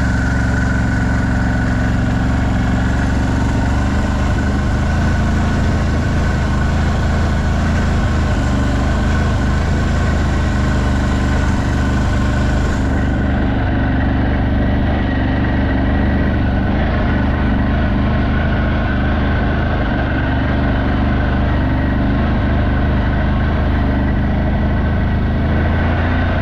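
CFMOTO 1000's V-twin engine running steadily at a low, even speed, with no revving.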